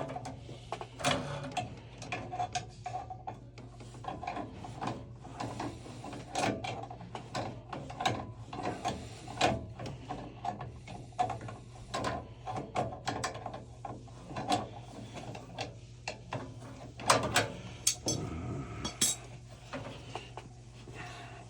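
Hand tools and metal parts clicking and clattering in irregular bursts while a gas water heater's burner and pilot assembly is put back together, over a steady low hum.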